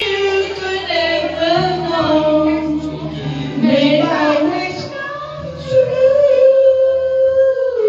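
A song playing: a sung melody over steady accompaniment, ending on a long held note.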